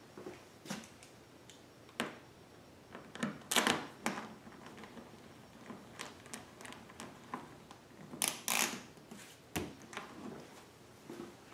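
Irregular clicks, taps and short scrapes of a hand tool working on a generator's plastic side cover as it is fastened back in place. The loudest scrapes come about three and a half seconds in and again after eight seconds.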